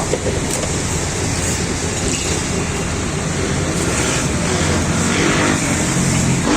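Street traffic: vehicle engines running in a continuous rumble.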